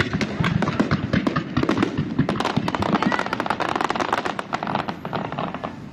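Fireworks display: a dense, rapid crackle of many small sharp bursts overlapping one another, from crackling stars and comets.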